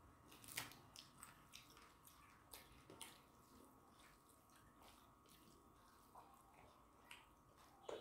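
Faint, scattered wet smacks and clicks of eating rice and curry by hand: chewing and fingers squeezing and mixing the rice. They are most frequent in the first three seconds.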